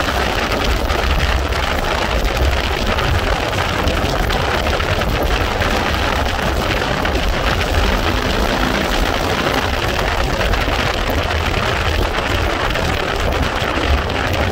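Steady wind buffeting the microphone, with engine and road noise underneath, from a vehicle cruising at highway speed.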